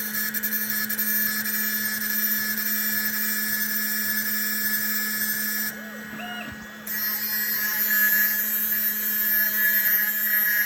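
CNC machine spindle running steadily with a high whine and hiss as its cutter works into quartz. Near the middle the sound drops away for about a second, then comes back slightly louder.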